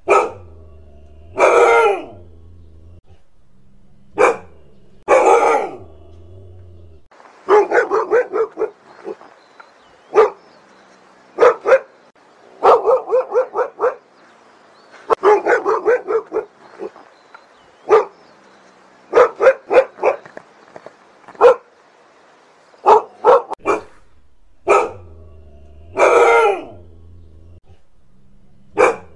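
Siberian husky barking: single loud barks a second or more apart, then through the middle quick runs of short barks in clusters, then single barks again near the end.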